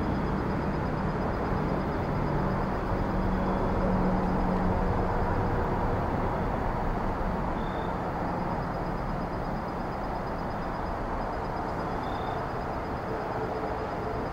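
Steady outdoor background noise, an even rumbling hiss, with a faint high pulsing trill over it and two brief high chirps later on.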